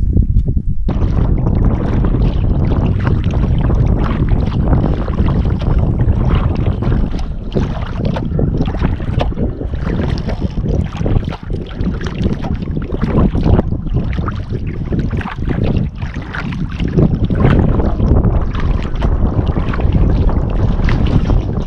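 Wind buffeting the microphone of a bow-mounted camera, over water sloshing against the hull of a sea kayak being paddled. It starts abruptly about a second in and goes on loud and gusty.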